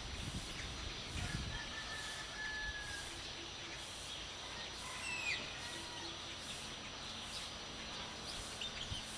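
Village dawn ambience: a distant rooster crowing and birds chirping over a steady background hiss. There is a low rumble in the first second or so.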